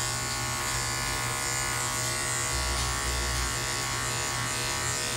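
Electric dog grooming clippers running with a steady buzz while clipping a Shih Tzu's coat.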